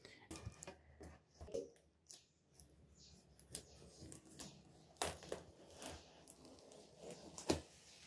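Knife blade slitting packing tape along a cardboard box seam: faint, scattered scrapes and clicks, with a few sharper ticks about five seconds in and near the end.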